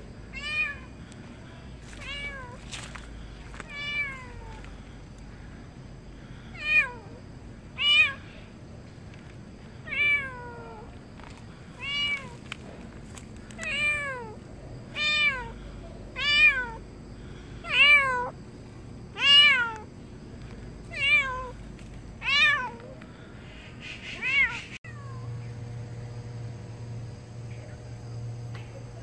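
A stray cat meowing over and over, about one falling-pitched meow every second and a half, the meows growing louder and then stopping a few seconds before the end.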